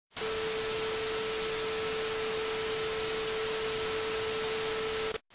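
Even static hiss with a single steady pure tone running under it, cutting out for an instant near the end and coming straight back.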